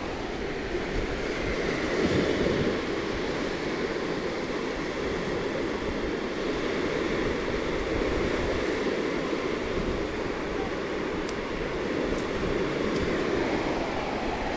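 Steady surf washing onto a sandy beach, mixed with wind on the microphone, with a few faint ticks near the end.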